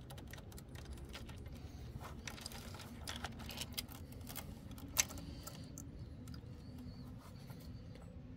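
Bicycle chain links clicking and rattling lightly as the chain is worked by hand over a sprocket, a string of small metallic ticks with one sharper click about five seconds in.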